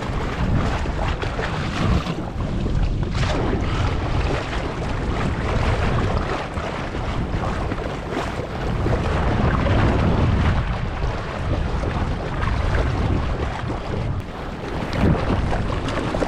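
Wind buffeting the microphone over the wash and splash of choppy sea water, a continuous rough rumble that rises and falls.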